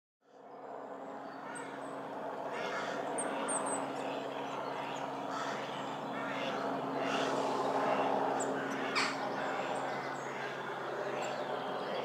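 Woodland birds calling, with a few brief high chirps and some harsher calls over a steady background hum and rush.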